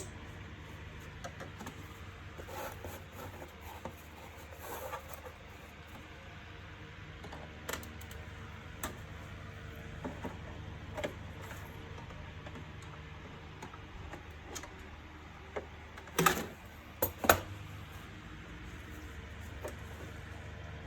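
Plastic vacuum-cleaner housing parts being handled and fitted together, with scattered light clicks and a few sharper, louder clicks and knocks near the end, over a steady low hum.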